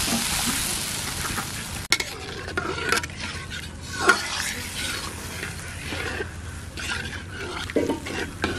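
Water poured into hot fish curry in a karahi hisses and sizzles, then stops abruptly about two seconds in. After that a metal spatula scrapes and clinks against the wok as the curry is stirred over a softer simmering sizzle, with the loudest clink about four seconds in.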